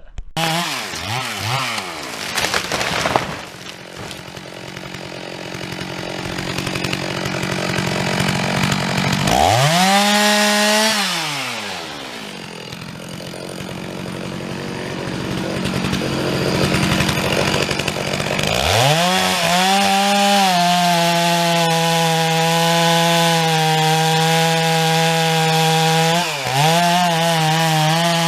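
Two-stroke chainsaw revving up and down, then held at steady high throttle for the last third, with a brief dip near the end, as when cutting a felled pine into logs.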